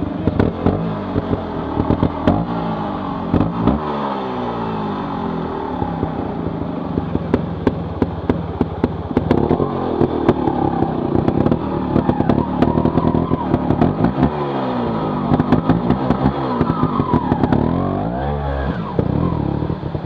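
Trials motorcycle engine revving up and down in repeated bursts as the bike is ridden up a small rocky waterfall, with rushing water and many sharp knocks and clatter.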